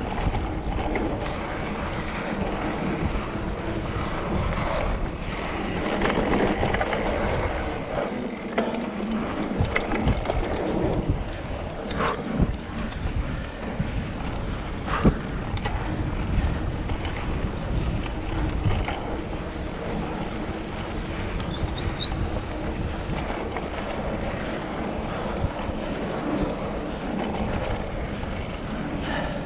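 Mountain bike riding over a dirt trail: tyres crunching and rolling on dust and loose gravel, with wind buffeting the camera microphone. Occasional sharp knocks and rattles from bumps, the loudest about halfway through.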